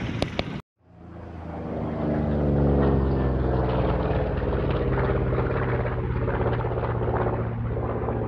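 Boat motor running under way. It comes in about a second in, builds briefly, then holds a steady drone.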